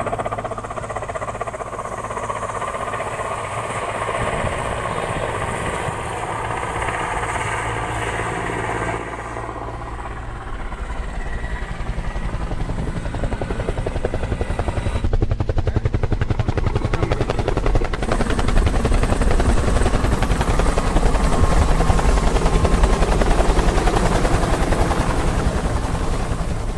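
Large transport helicopter flying low, with a rapid rotor beat and a steady engine hum. It grows louder in the second half as it passes close overhead.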